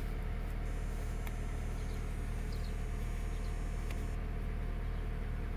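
2013 Dodge Avenger's engine idling steadily, heard from inside the cabin, with a few faint clicks as the steering-column stalks are worked.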